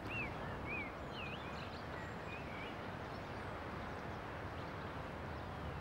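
Steady outdoor background noise with a bird chirping several short notes in the first couple of seconds.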